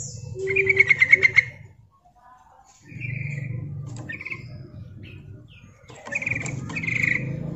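Female yellow-vented bulbul calling: a fast rattling run of chirping notes about half a second in, then short chirped phrases, and two more calls near the end.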